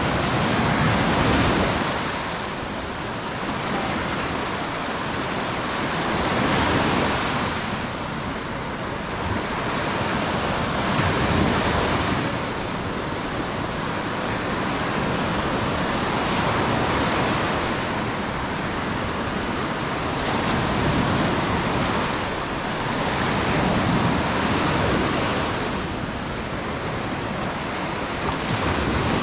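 Sea surf washing onto a beach: a steady rush of breaking waves that swells and fades every few seconds.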